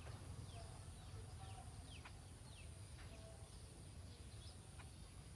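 Faint outdoor background with birds calling in short chirps that slide downward in pitch, repeated every half second or so, over a low steady rumble and a steady high hiss.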